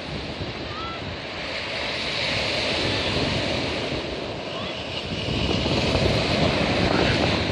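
Waves washing in, a steady rushing noise that swells twice, with wind buffeting the microphone.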